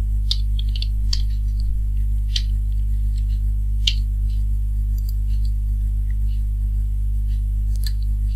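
Loud, steady electrical mains hum with scattered faint computer keyboard and mouse clicks while code is typed, the clicks thicker in the first few seconds.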